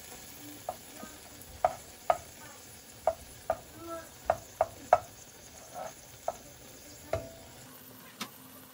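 Butter melting and sizzling in a small saucepan on medium heat, with a dozen or so sharp, irregular pops, while a plastic spoon stirs it. The pops stop about seven seconds in, leaving a soft sizzle.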